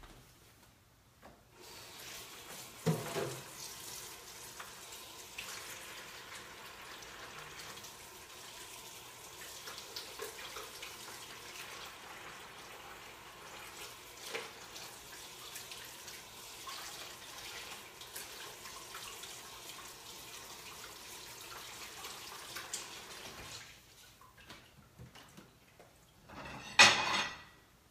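Kitchen faucet running into the sink as cooked chicken is rinsed in a bowl, a steady splash with small clicks and knocks, stopping a few seconds before the end. A brief loud clatter follows near the end.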